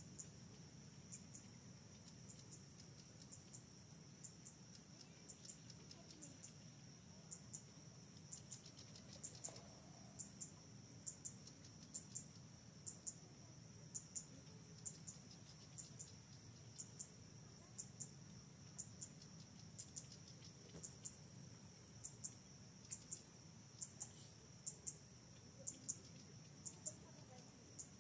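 Faint insects chirping in the undergrowth: a high, steady drone that pulses in stretches lasting a few seconds, with short ticks repeating about one to two times a second.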